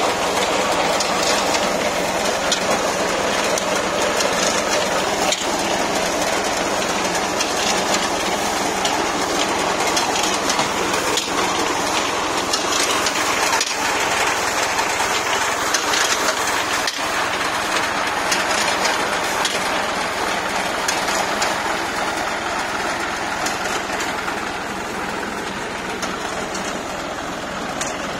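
Tractor-mounted reaper binder cutting wheat: a loud, steady mechanical clatter from the cutter bar and binding mechanism over the tractor engine running, with no pauses.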